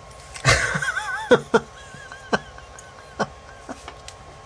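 A man's exasperated, half-laughing whimper: a sharp exhale, then a wavering high whine broken by short huffs of laughter.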